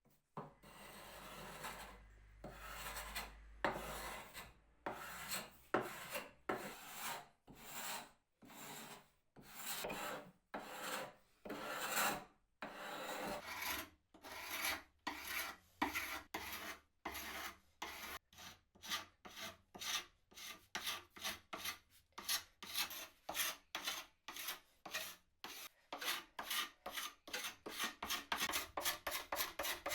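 A hand tool rasping over wood in repeated back-and-forth strokes. The strokes are long and about one a second at first, then become shorter and quicker, about two a second, from about halfway.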